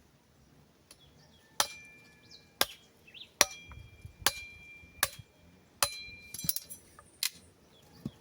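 A series of sharp knocks, about eight blows spaced under a second apart, as sticks are struck while building a stick bird trap. Several blows leave a brief ringing tone.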